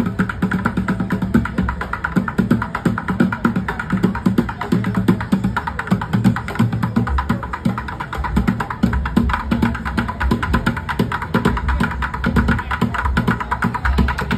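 Street bucket drumming: two drummers beating drumsticks in a fast, unbroken rhythm on upturned plastic buckets, with rapid hits running together throughout.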